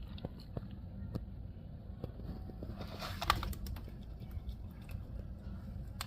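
Cat crunching dry kibble: scattered crisp clicks, with a denser cluster about three seconds in, over a steady low hum.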